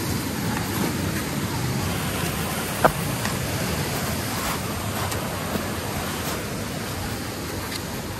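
Steady rush of a cascading mountain stream over rocks, with a few sharp taps on top, the loudest about three seconds in.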